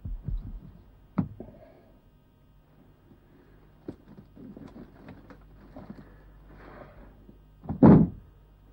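Books being pulled off wooden library shelves and dropped into a wicker basket: a string of knocks, rustles and soft thuds, with a sharp knock about a second in and the heaviest thump near the end.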